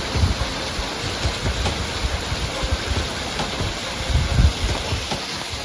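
Steady rushing noise of a waterfall, with wind buffeting the microphone in irregular low gusts, the strongest about four seconds in.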